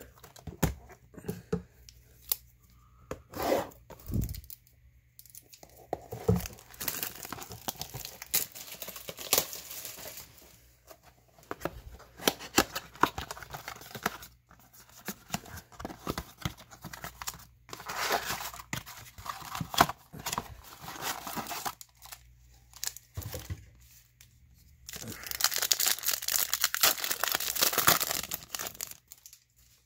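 Hands opening a 2018 Topps Gallery blaster box and tearing open its foil card packs: sharp crackling and tearing of the wrappers with clicks of cardboard. There are two longer, louder spells of crinkling, one past the middle and one near the end.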